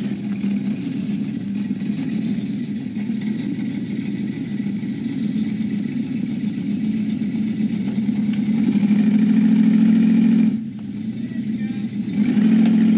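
Pickup truck engine running steadily and revving harder from about eight seconds in. It drops off sharply at about ten and a half seconds, then revs up again near the end.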